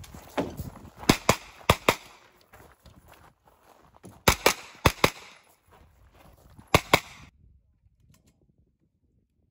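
Pistol-caliber carbine fired in quick double taps: five pairs of sharp shots, each pair a fraction of a second apart, in three bursts with short gaps between. The sound falls away almost to nothing about seven seconds in.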